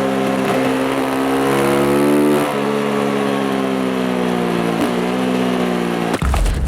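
Beta RR 125 motorcycle engine pulling under acceleration, its pitch climbing steadily and dropping sharply at two upshifts, about two and a half and about five seconds in. Near the end a sudden loud low rumble takes over.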